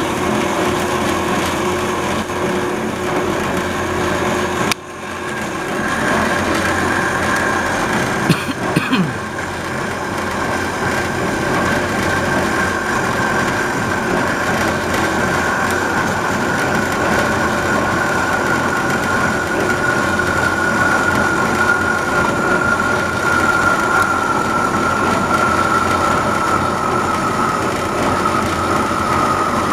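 Wellsaw Model 8 horizontal band saw running, its blade cutting down through a block of wood: a steady mechanical hum with a high whine that slowly sinks in pitch. The sound breaks off briefly about five seconds in, and there are a few clicks around eight to nine seconds.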